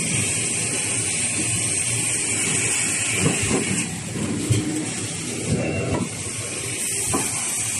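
V-fold facial tissue production line running: a steady machine hiss with an even mechanical clatter, and a few sharper knocks around the middle.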